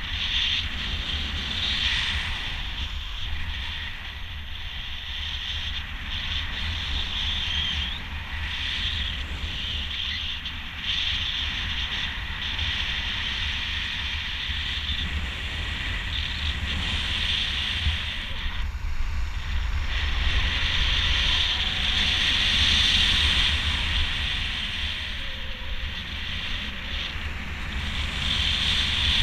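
Wind buffeting the microphone in flight under a speed-flying miniwing: a constant low rumble with a higher hiss that swells and eases, strongest about three quarters of the way through.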